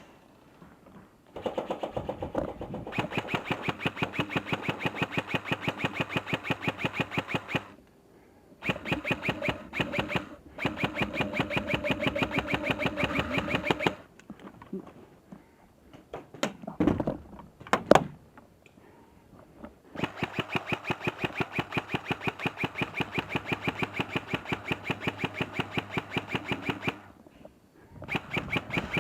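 G&G T91 airsoft electric rifle firing long full-auto bursts: rapid, even clicks of the gearbox cycling over the hum of its motor, with short pauses between bursts. A few single sharp knocks come between bursts in the middle.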